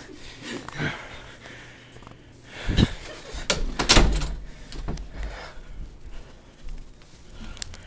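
Door thuds in a small room: a few heavy knocks and bangs about three and four seconds in, amid rustling.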